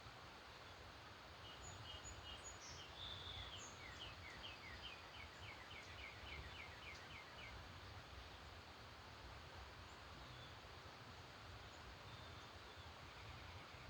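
Faint bird song over a steady low hiss: a few high notes, then a rapid trill of short repeated descending notes lasting a few seconds. A second brief faint trill comes near the end.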